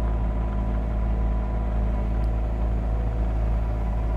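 Caterpillar 259D3 compact track loader's diesel engine running steadily while grading dirt, a constant low drone with no change in pitch.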